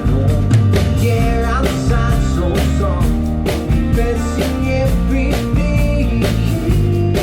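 Live rock band performance of a song: a man singing over a drum kit and band.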